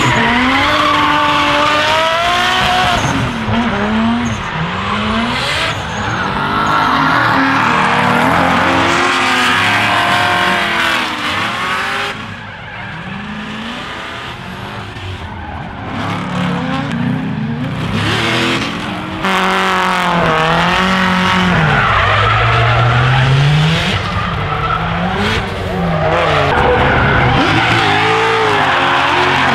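Drift cars sliding in tandem: engines revving up and down with the throttle over the squeal of spinning tyres. It goes a little quieter for a few seconds around the middle, then picks up again.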